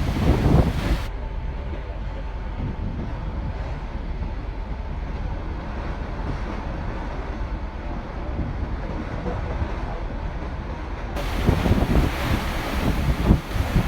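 Passenger ferry under way: a steady low engine rumble with wind buffeting the microphone. The gusts stop abruptly about a second in, leaving only the even drone and a faint steady hum. The wind buffeting returns a few seconds before the end.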